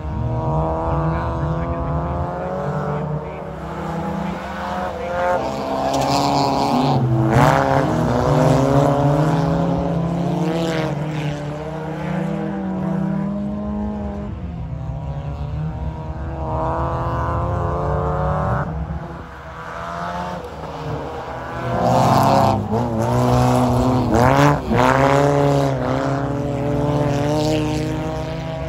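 Several front-wheel-drive ice-racing cars on studded tyres running a heat, their engines revving up and down as they go through the corners. They grow louder as the cars pass, once near the middle and again late on.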